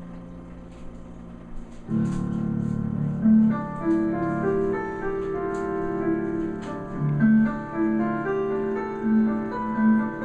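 Slow instrumental background music with held keyboard-like notes. It is quiet at first and becomes fuller and louder about two seconds in.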